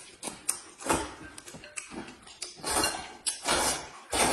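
Noodles being slurped loudly from a bowl of soup, several slurps in a row with short pauses between.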